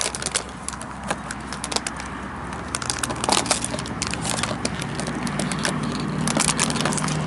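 Crushed plastic water bottle crackling and crinkling as a puppy chews and pushes it around, in irregular sharp crackles.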